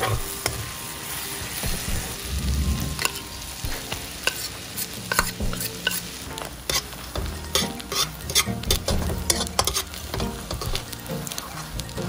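Garlic and minced red chili sizzling in butter in an aluminium wok, with a metal spatula scraping and clicking against the pan as it is stirred.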